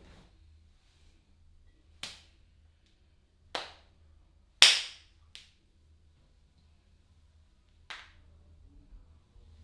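Sharp hand slaps of a barber's head massage: five separate strikes at irregular spacing, the one in the middle the loudest.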